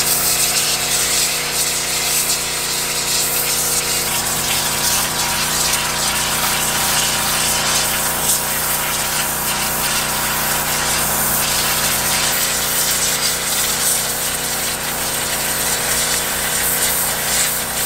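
Pressure washer running steadily, its pump hum over the hiss of the water jet as it blasts out the foam packed around a boat's fuel tank.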